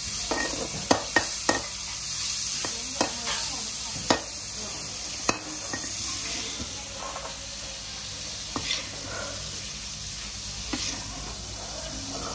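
Food sizzling as it fries, with sharp clicks and knocks of a cooking utensil every second or two.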